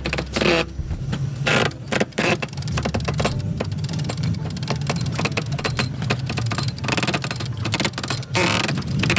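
Wind rushing over the microphone, with scattered sharp knocks and clicks from the mast and its rigging as a man in a bosun's chair climbs the aluminium mast.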